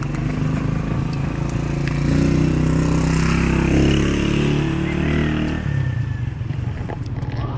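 Motorcycle tricycle engine passing close by: a steady engine drone that grows louder about two seconds in, peaks, and falls back just before six seconds.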